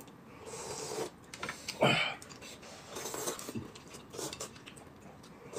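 Two people eating from glass bowls, quietly slurping soup and noodles, with chopsticks and a spoon touching the bowls.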